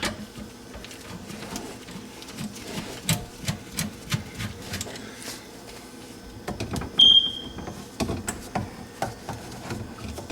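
Scattered light clicks and knocks of hand-tool work on a garbage disposal's metal mounting hardware, with one short, high beep about two-thirds of the way through: a smoke detector's low-battery chirp.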